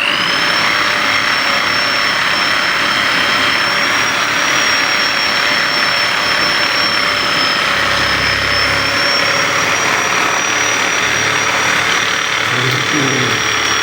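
A small electric motor running at a steady speed with a high whine over a rushing noise, settling into its steady pitch after spinning up right at the start.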